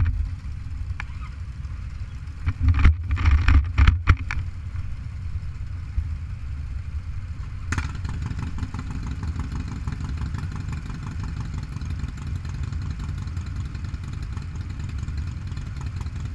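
Motorcycle engines idling with a steady low rumble. About three seconds in comes a loud cluster of knocks and rustling, and near the middle a single sharp click, most likely the camera being handled on its mount.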